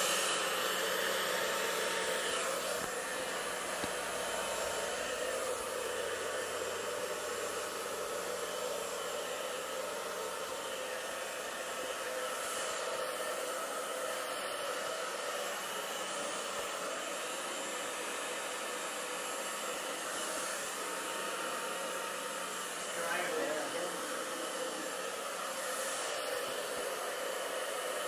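Hair dryer running steadily, an even rush of blown air over a constant motor hum.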